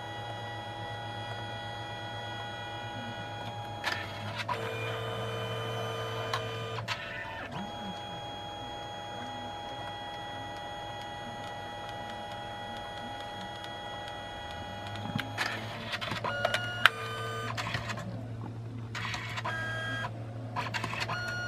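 Canon Selphy CP1300 dye-sublimation photo printer running a print. A steady motor whir changes and is broken by clicks about four seconds in and again around fifteen to eighteen seconds in, as the paper is fed back and forth through the colour passes and the finished photo comes out.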